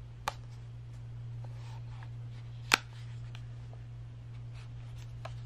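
Small hard clicks from a Sony ZV-1 compact camera being handled, its flip-out screen swung shut on its hinge against the body. One sharp click comes early and a louder one about two and a half seconds in, with a few faint ticks, over a steady low hum.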